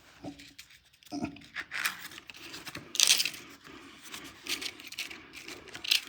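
Small objects being handled and moved about: irregular scraping, rustling and clattering, with a sharp, loud scrape about three seconds in and another just before the end.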